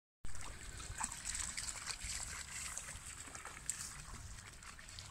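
Shallow river water splashing and sloshing in small irregular bursts as Cane Corso dogs wade through it, over a low steady rumble.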